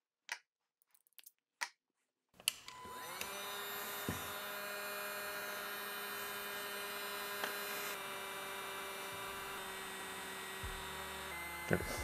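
A few light clicks, then a cordless heat gun switched on about two and a half seconds in: its fan spins up and runs with a steady hum and rush of air, used on the crimped spade connectors of the wire pigtails. The pitch shifts slightly near the end before it is switched off.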